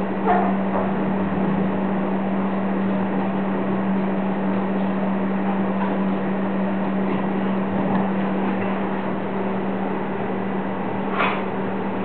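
Steady low hum over an even hiss, with a couple of brief sharp sounds, the clearest near the end.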